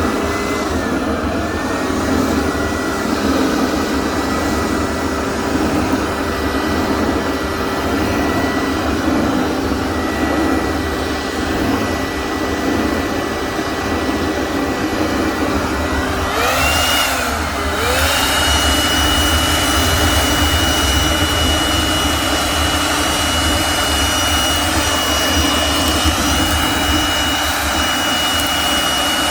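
Electric air blower running steadily with a motor whine. About 17 seconds in, its pitch dips and then climbs to a higher speed, where it holds.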